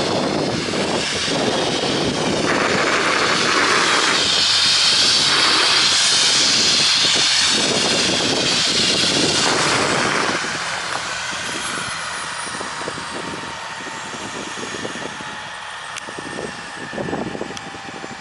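Air ambulance helicopter's turbine engines and rotor running on the ground: a loud rush for the first half that then eases off, with a whine falling slowly in pitch as the engines wind down.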